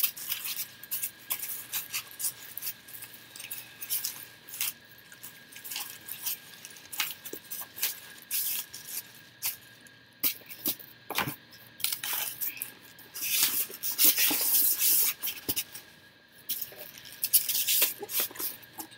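Rummaging through a cardboard shipping box: packaging rustling, with scattered clicks and knocks of items being moved and handled.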